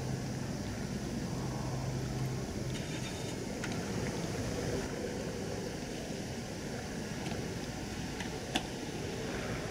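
Steady low rumble of a passing cement carrier's engine, heard from the shore under a haze of wind and water noise. A low hum in it stops about two seconds in, and a single sharp click sounds near the end.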